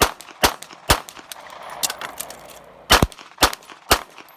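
Rapid pistol fire from a Glock Gen5 G17 in 9×19 mm: three shots about half a second apart, a pause of about two seconds, then three or four more at the same pace.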